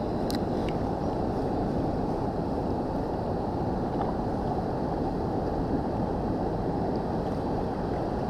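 Steady, low rushing of a fast, high river current.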